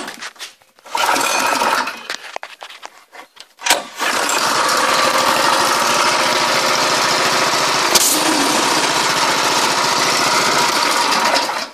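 Small single-cylinder four-stroke go-kart engine, a 7 HP Thornado fitted with a new carburettor jet and a small exhaust. It runs briefly about a second in, then catches just before four seconds in and runs at a steady speed until it stops near the end.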